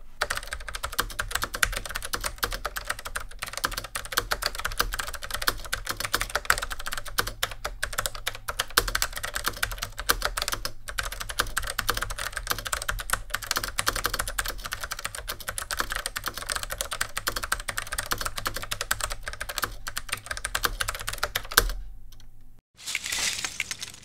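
Fast typing on a Hottek 1KB101 mechanical keyboard with HTK switches: a dense, continuous run of key clicks that stops abruptly about 22 seconds in. A short rush of noise follows in the last second.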